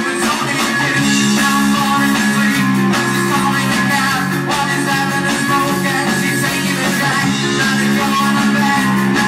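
Live rock band playing: electric guitars, bass guitar and drums, with a lead vocal.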